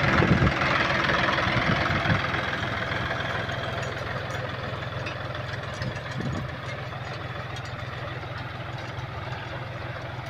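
Tractor diesel engine running steadily under load while pulling a seed drill, with a dry scraping hiss from the drill's tines working the soil. The hiss fades over the first few seconds, and the whole sound grows gradually fainter.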